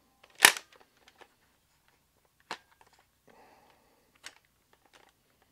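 Nerf Rival Curve Shot Flex blaster worked by hand during firing and reloading: a sharp plastic snap about half a second in, a second snap about two seconds later, and a fainter click near the end, with light handling noise in between.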